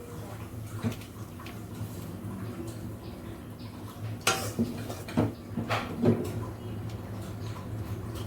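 Metal spoon scraping and clinking against the cooking pan and plate while fish curry is served out, with a few sharper clinks about four to six seconds in. A steady low hum runs underneath.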